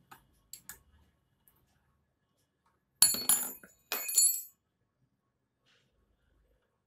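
Loose steel parts clinking against the die holder of a manual LED bulb tikki-fitting hand press while the die is being changed. A few light clicks, then two short bursts of ringing metal clinks about three and four seconds in.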